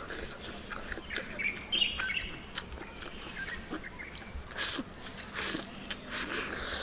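Steady high-pitched insect buzzing, with a few short bird chirps and soft clicks of chopsticks against a bowl as someone eats.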